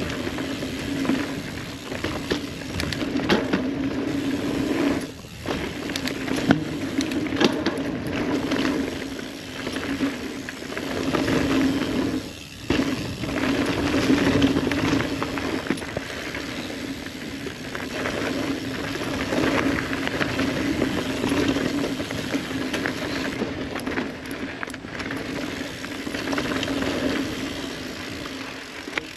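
Ibis Ripley mountain bike riding down a dirt singletrack. Tyres roll over dirt and roots with a steady buzzing hum, and the chain and frame clatter over bumps. The hum drops out briefly twice, about five and twelve seconds in.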